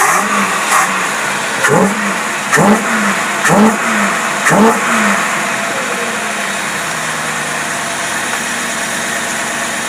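Engine running on a Carter AFB four-barrel carburetor, blipped four times in quick succession, each rev rising and falling back, then settling to a steady idle. The carburetor is responding cleanly with no flooding: it runs perfect.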